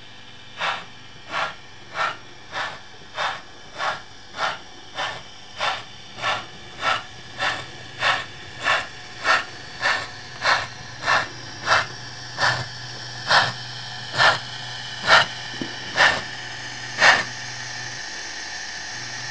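Model steam locomotive chuffing as it runs: a regular beat of sharp puffs, at first about one and a half a second, over a steady hiss and a low hum. The puffs grow louder and slow to about one a second near the end as the locomotive draws close.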